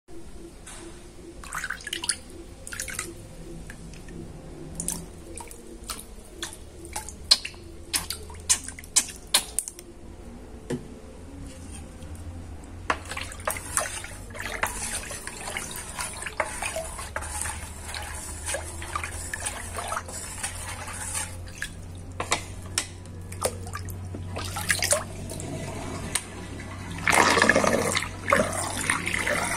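Water swirling down a sink drain in a whirlpool, with many scattered drips and plops over a low steady hum. A louder rush of water comes near the end.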